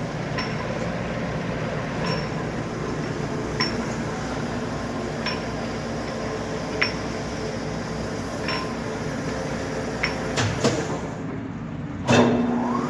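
Kuraki hollow spindle engine lathe running at its slow 6 RPM spindle speed: a steady mechanical hum with a light metallic click about every second and a half. A couple of louder clunks come near the end.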